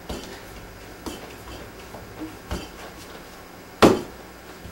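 Pizza dough being kneaded by hand on a wooden board: a few soft thuds as it is pushed and pressed, with one sharper knock near the end.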